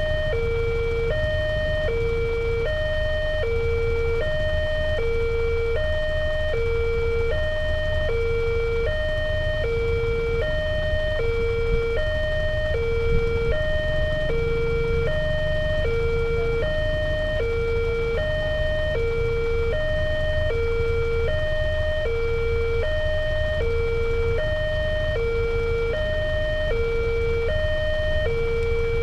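Railway level-crossing warning siren sounding continuously, an electronic two-tone alternating high and low about once a second. It signals that the crossing gate is closing for an approaching train.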